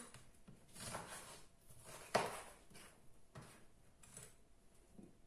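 Kitchen knife slicing a red bell pepper into thin strips on a wooden cutting board: about five separate strokes knock on the board, the loudest about two seconds in.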